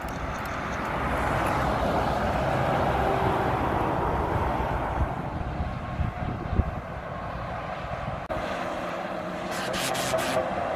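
Articulated trucks passing on the motorway below, a steady rush of tyre and engine noise, with wind buffeting the microphone.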